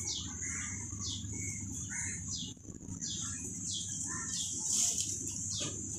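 Small birds chirping: a run of short falling chirps, about two a second, over a steady high hiss.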